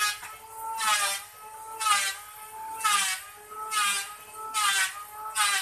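Hand-driven wood lathe turning a log against a cutting tool. It gives a squeal that rises in pitch about once a second, in time with each stroke of the drive handle.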